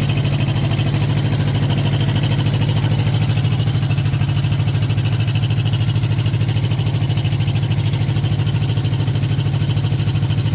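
Two-cylinder Kubota diesel engine of a generator set running at a steady speed with an even, fast beat, driving its alternator. The alternator is producing voltage but no load is drawn.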